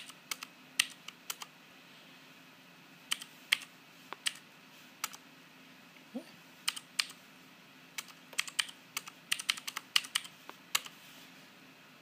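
Clicky Cherry MX Blue key switches on a Keycool 22-key mechanical numeric keypad, pressed one key at a time to type numbers. The presses are scattered at first, then come in a quicker run in the last few seconds.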